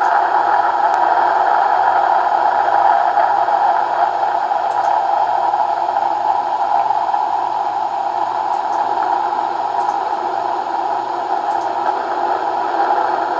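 Loud, steady rushing noise of an atomic-blast sound effect on an old film soundtrack, thin in the bass and holding without a break.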